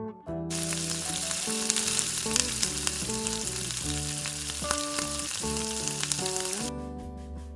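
Gulab jamun dough balls sizzling as they deep-fry in hot oil in a wok. The sizzle starts about half a second in and cuts off suddenly near the end, with acoustic guitar music underneath.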